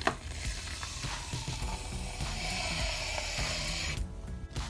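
Aerosol shaving-foam can spraying foam onto slime: a steady hiss that cuts off about four seconds in.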